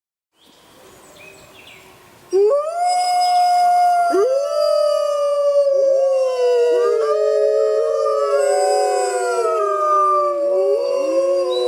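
A wolf pack howling in chorus. Several long howls overlap, each starting with a quick rise in pitch and then sliding slowly down; the first comes in about two seconds in and others join over the next few seconds.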